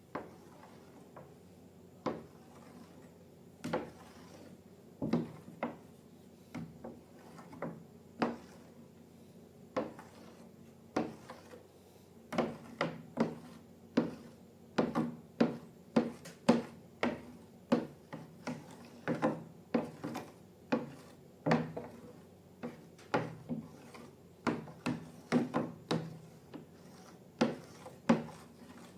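A string of irregular sharp taps and knocks from hard objects being handled and set down. They come about one a second at first and grow closer together, two or three a second, about halfway through.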